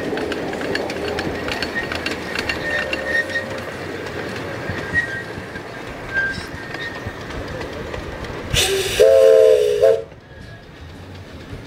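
Grand-scale vertical-boiler steam locomotive running with its passenger cars, wheels clicking and clattering on the rails. Near the end it blows one loud steam-whistle blast of about a second and a half, a chord of several tones that rises slightly and then holds.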